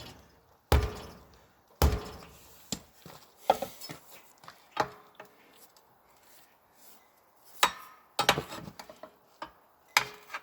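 Irregular sharp knocks and clanks, each with a short ringing fade, as a tire is pried and worked over the wheel rim with a tire iron. A quick run of lighter knocks comes near the end.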